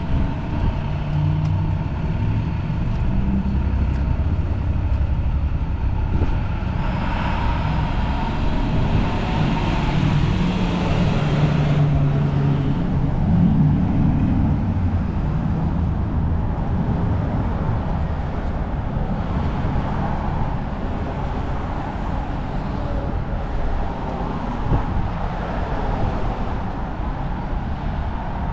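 City street traffic: vehicle engines running with a steady low rumble, and a louder vehicle passing a quarter to halfway through.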